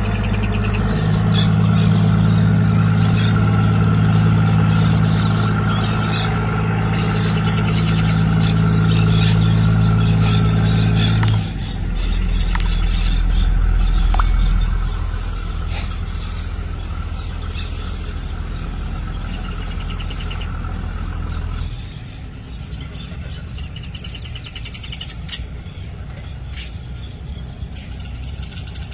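A river passenger ship's horn sounds one long, low blast, which cuts off abruptly about eleven seconds in. A lower steady drone follows and drops away about twenty seconds in, with faint chirps over it.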